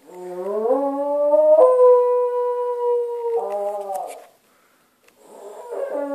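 Cairn terrier howling: one long howl that rises in pitch over its first second and a half, holds steady, then dies away about four seconds in. A second howl starts about a second later.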